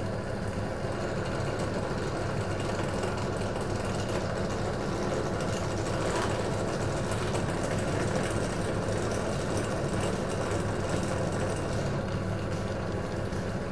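Benchtop drill press running steadily with a low motor hum while a 5 mm bit drills through a black plastic project enclosure.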